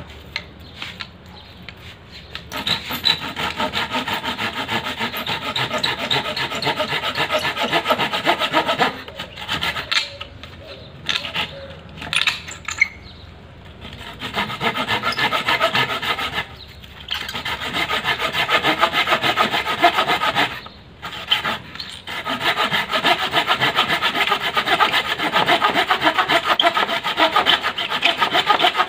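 Hand pruning saw cutting through a weathered wooden pole in quick back-and-forth strokes. The sawing starts a couple of seconds in and stops briefly a few times before carrying on.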